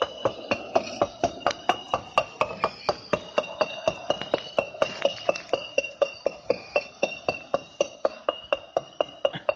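Rapid, evenly spaced clinking taps on a hard, ringing object, about four or five a second, each leaving a short metallic-glassy ring.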